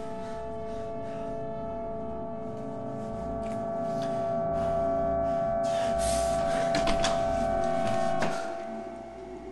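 Tense film-score music: a held, droning chord of several tones that swells louder over a few seconds, with a few sharp knocks near the end, then cuts off abruptly about eight seconds in.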